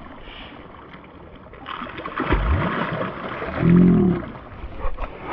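Water splashing as two bass hooked on one jerkbait thrash at the boat side, with a short voiced exclamation from a person about two-thirds of the way in.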